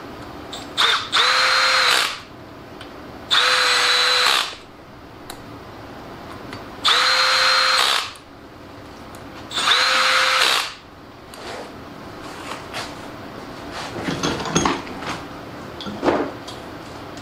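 Cordless electric ratchet running in four short bursts of about a second each, spinning the bolts of an LS engine's cam retaining plate down. Each burst spins up to a steady whine and drops away as it stops. A few light clicks and knocks follow near the end.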